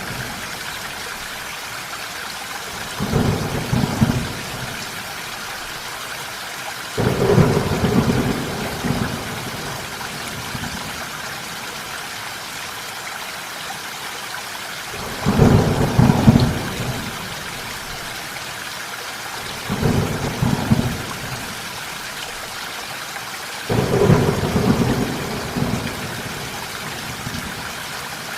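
Steady rain with five short thunder rumbles, each a second or two long, at irregular intervals through the downpour.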